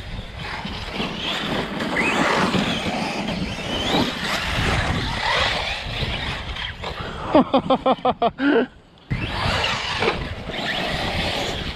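Brushless electric motors of 6S Arrma RC monster trucks whining, the pitch rising and falling with the throttle. Past the middle comes a quick run of loud pulsing whines, cut off by a brief drop to near silence.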